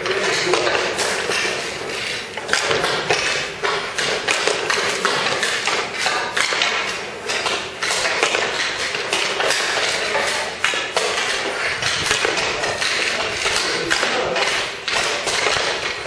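Ice hockey sticks and pucks clacking during a youth practice: many irregular sharp knocks, with children's voices in the background.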